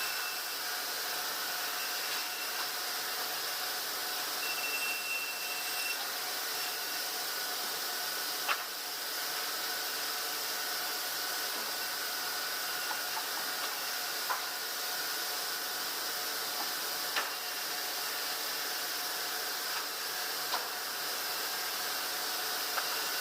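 Sawmill machinery running steadily: an even hiss with faint whining tones, and a few sharp clicks scattered through it.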